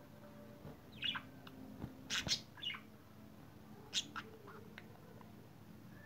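Budgerigars giving a few short, sharp chirps: one about a second in, a loudest cluster around two seconds in, and a last pair about four seconds in.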